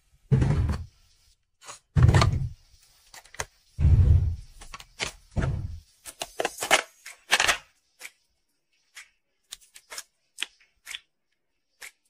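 Toiletries handled at a bathroom counter: four dull, bass-heavy thumps spaced over the first six seconds, then a quick run of sharper plastic clicks, then a few light scattered taps.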